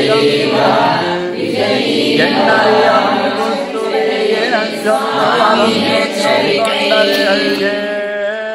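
Several voices chanting a devotional hymn together in a sing-song recitation, holding each note and stepping between a few pitches, with no break.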